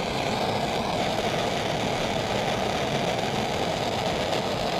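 Propane torch burning with a steady rushing flame, heating a fluxed 3/4-inch copper sweat joint before the solder is fed in.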